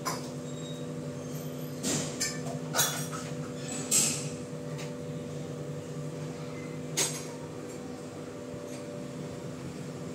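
About six short clicks and taps from a smartphone being handled and tapped during setup, spread over the first seven seconds, the sharpest about four seconds in, over a steady low hum.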